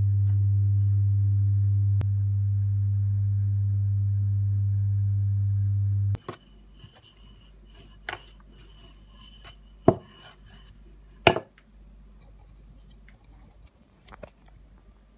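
A steady low hum cuts off suddenly about six seconds in. After that there are quiet handling noises and a few sharp knocks of a wooden rolling pin on the stone worktop, the two loudest about a second and a half apart.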